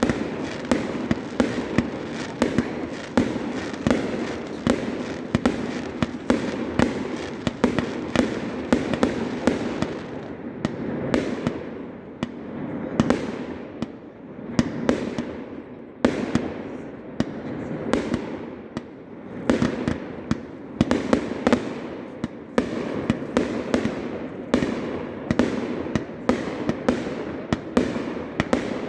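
Fireworks display going off in a dense, unbroken volley of sharp bangs, several a second, thinning a little about a third of the way in before building again.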